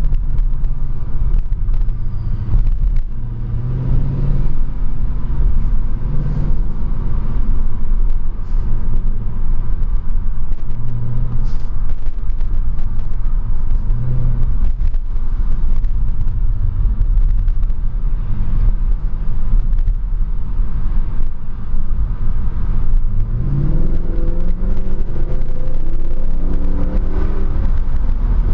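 Mercedes C63 AMG (W204) 6.2-litre V8 running at low revs, heard from inside the cabin over a steady deep road rumble. In the last few seconds the engine note climbs as the car accelerates.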